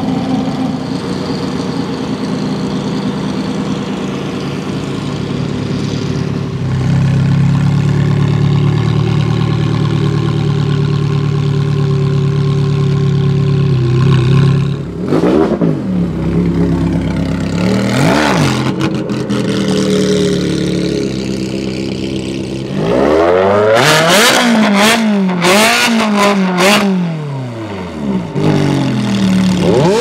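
Lamborghini Diablo SV's V12 idling, then a Ferrari 360 Challenge Stradale's V8 idling and revved in short blips: two about halfway through, then a rapid series of about five near the end with a few sharp cracks among them.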